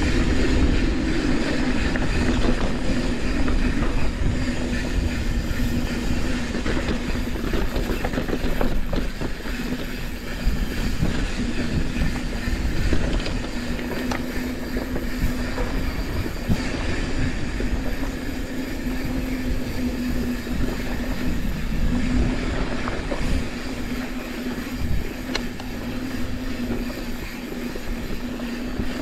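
Santa Cruz 5010 mountain bike rolling along a dry, dusty dirt trail: a continuous rumble of knobby tyres on the ground with a steady hum and scattered rattles and clicks from the bike.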